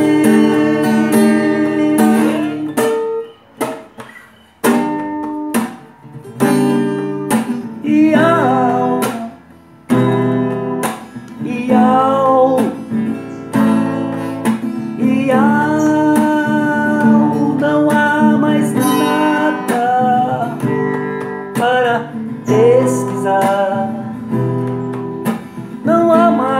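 Music: an acoustic guitar strumming chords, with a voice singing long, bending, drawn-out notes over it from about eight seconds in.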